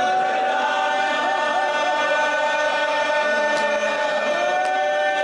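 Male voices chanting a marsiya, a Shia elegy, without instruments, holding long notes that waver and curl.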